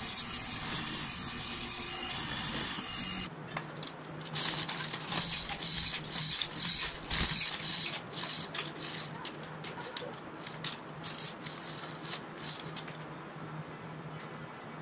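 A band saw runs with a steady hiss for about three seconds. After a cut, there are repeated bursts of metallic rattling and clicking as a Chevy T5 transmission hanging on a chain hoist is worked onto the bell housing and its bolts are fitted. The bursts die away about two seconds before the end.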